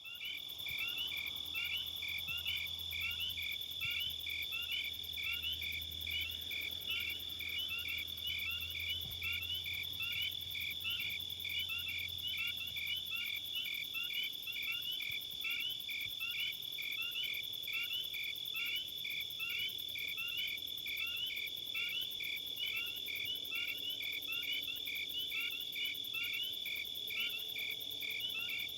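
Insect chorus, probably crickets: a steady high-pitched drone with evenly repeated chirps about twice a second.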